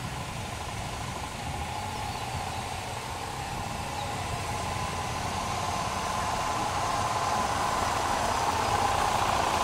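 A group of dual-sport motorcycles rides toward the listener on a dirt road, led by a Suzuki DR650. The engine noise grows steadily louder as they near.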